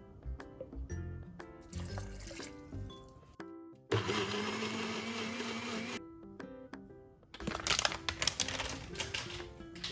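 Electric blender motor running for about two seconds, blending fingerroot and shallots with water, over background music with plucked notes. A second, choppier burst of noise follows a few seconds later.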